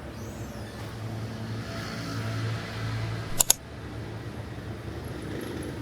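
Street ambience with a car engine running steadily, and a sharp double click about three and a half seconds in.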